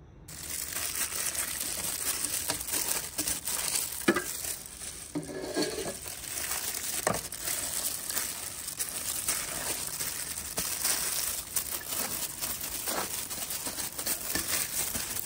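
Food frying in hot oil: a steady sizzle thick with crackles that sets in suddenly, with a few sharper pops.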